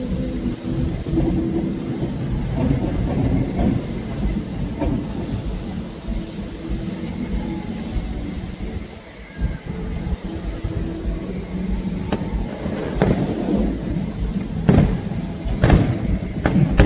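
Fireworks display: a continuous low rumble of aerial shell bursts, then a run of sharp bangs in the last five seconds.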